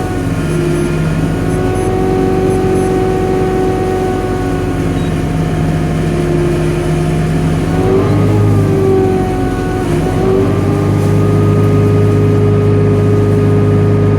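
New Holland tractor engine running steadily while driving a PTO straw bedding machine. Its pitch sags and recovers briefly twice, about eight and ten seconds in, as the load changes.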